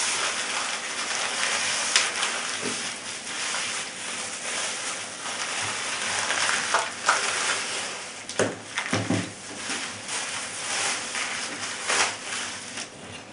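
Plastic bubble wrap crinkling and rustling as it is handled and pulled off a rifle scope, with a few sharper crackles along the way.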